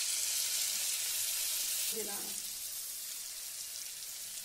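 Chopped onions and chilli powder frying in groundnut oil in an aluminium pot, a steady sizzle as fresh mint leaves are dropped in. The sizzle eases slightly about halfway through.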